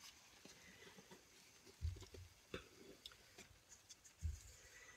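Faint sticky scraping and soft clicks of a wooden spoon digging marshmallow cream out of its jar into a stainless steel pot, with two dull thumps, about two seconds in and again near the end.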